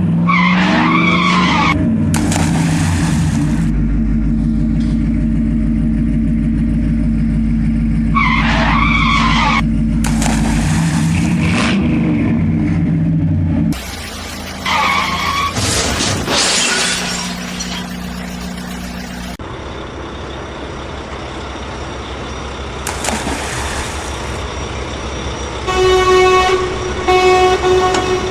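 Vehicle engine sounds: a steady engine drone that cuts off suddenly about halfway through, followed by a different, quieter engine running. Two short horn honks sound near the end.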